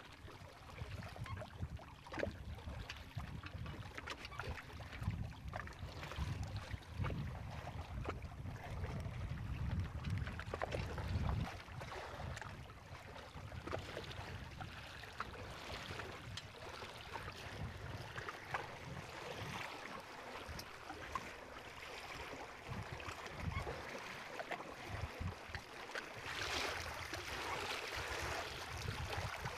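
Water washing and lapping along the hulls of a Prindle 18 catamaran under sail, with many small slaps. Wind buffets the microphone in low rumbles for the first ten seconds or so, and a louder rush of water comes near the end.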